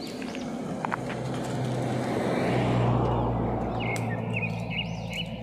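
A motor vehicle passing close by: its engine hum and tyre noise swell to a peak about halfway through and then fade. Short bird chirps come in near the end.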